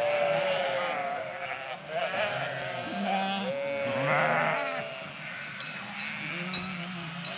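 Flock of sheep bleating, many overlapping calls at different pitches, with a few light high clinks about two-thirds of the way through.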